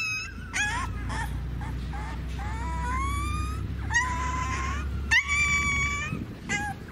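A young puppy whining and crying in a string of high cries, several of them long and rising in pitch, while mangoworm larvae are being taken out of its skin. The sores are infected and painful.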